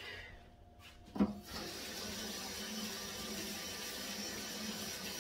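Kitchen sink faucet turned on with a knock about a second in, then water running steadily into the sink.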